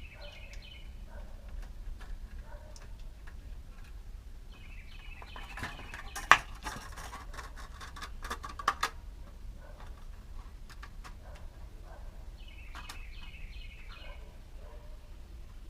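Birds chirping in short repeated phrases, three times. Around the middle comes a cluster of sharp clicks and rattles, the loudest a single click, over a low steady background noise.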